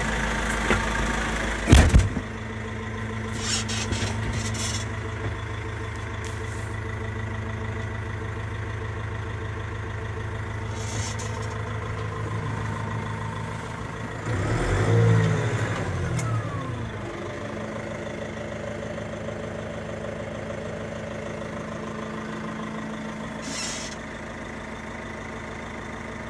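Massey Ferguson 5455 tractor's four-cylinder diesel engine idling, heard from inside the cab. A sharp clunk comes about two seconds in, and the engine revs up briefly and falls back about fifteen seconds in.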